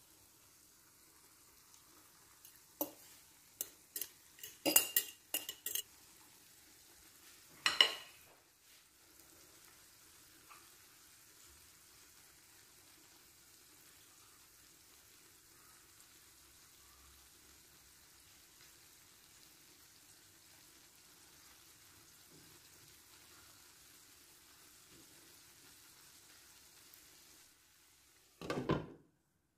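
Grated potato and zucchini mixture sizzling gently in oil in a nonstick frying pan. A metal fork scrapes and taps against the pan several times, the loudest tap about eight seconds in. Near the end a glass lid knocks onto the pan.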